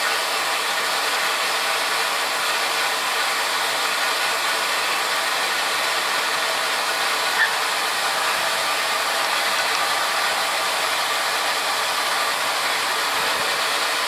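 Steady, even hissing noise of machinery or moving air, with one faint click about seven seconds in.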